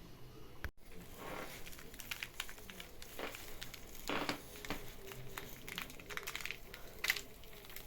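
Faint kitchen handling noises: scattered light clicks and short rustles.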